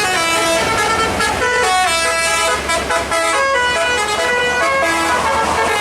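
Bus telolet musical air horn playing a tune: a run of loud horn notes that step from pitch to pitch every fraction of a second, with some chords of two or more notes at once.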